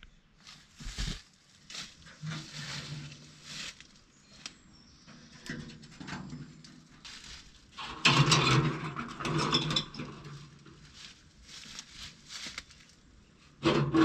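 Rustling, scraping and footsteps on leafy forest ground as gear and bedding are handled, in irregular bursts, loudest from about eight seconds in.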